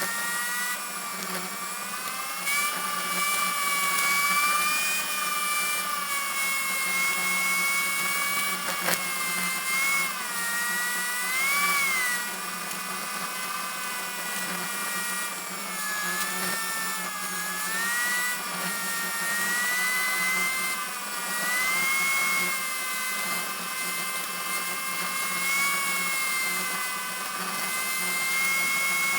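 Heavy vehicle running: a high mechanical whine that drifts up and down in pitch with engine speed, over a steady low hum and hiss.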